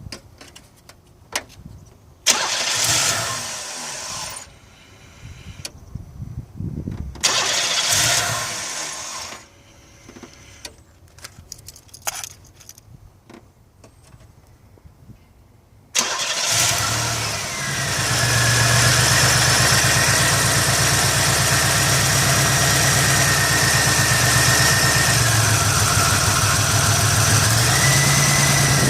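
1989 Buick Century's 3.3-litre V6 starting suddenly about 16 seconds in and then running steadily, after two short noisy bursts a few seconds in. Near the end its speed sags briefly and picks back up.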